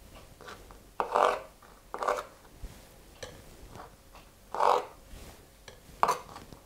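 Knife cutting soft canned apricots into small pieces: a few short scraping cuts, irregularly spaced.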